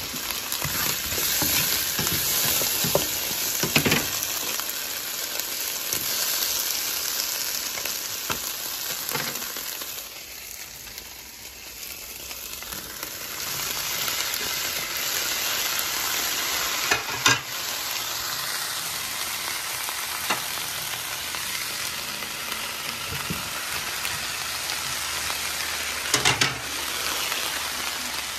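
Vegetables (potato, onion, carrot and green beans) sizzling steadily in a lightly oil-sprayed frying pan, with a few sharp knocks. The sizzle drops for a couple of seconds about ten seconds in.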